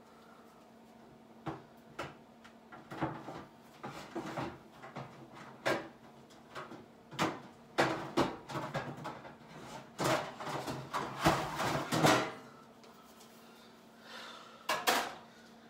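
Kitchen clatter: a run of knocks, clacks and rattles as kitchen cabinets and drawers are opened and shut and cookware is handled. The busiest stretch ends about twelve seconds in, and a couple more knocks come near the end.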